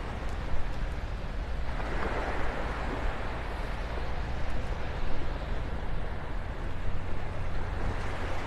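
Small waves washing onto the beach, swelling about two seconds in, with wind rumbling on the microphone.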